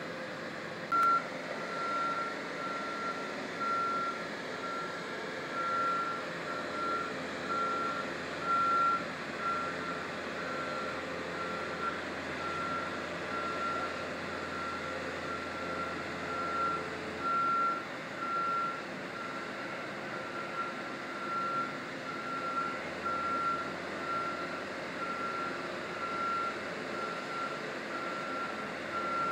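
Back-up alarm on construction machinery beeping in an even, repeating series, starting about a second in, over a low engine hum that drops out for a few seconds past the middle.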